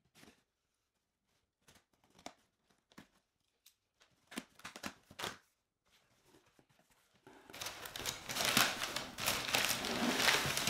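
Scissors snipping through packing tape on a cardboard shipping box in short, scattered cuts, then cardboard flaps and packing being pulled open and rustled, much louder from about seven seconds in.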